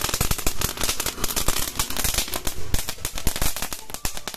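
Lollipop firecracker bursting in a rapid, uneven string of sharp pops that does not let up.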